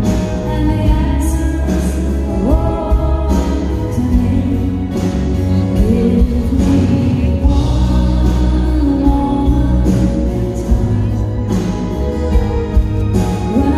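A female singer singing live into a handheld microphone over a band at a concert, with a strong bass line underneath.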